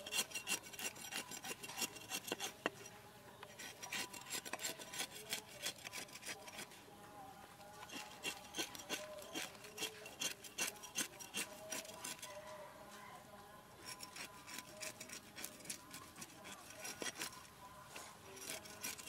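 Cleaver blade scraping the scales off a whole fish on a round wooden chopping board: runs of quick rasping strokes broken by short pauses.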